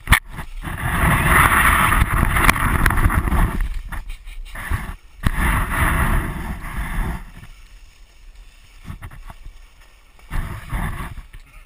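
Plastic pan sled sliding fast over snow: a rough scraping hiss mixed with wind on the microphone, loud in two runs and easing off about seven seconds in. A sharp knock right at the start.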